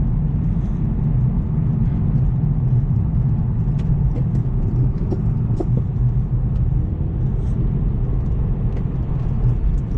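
Steady low rumble of a car driving, heard inside the cabin: engine and tyre noise on a snow- and ice-covered road, with a few faint ticks.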